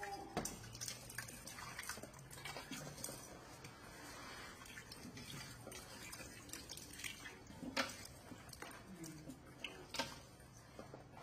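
Cut taro sticks being rinsed by hand in a stainless steel pot under a thin stream of tap water, the pieces sloshing and now and then clicking against the pot.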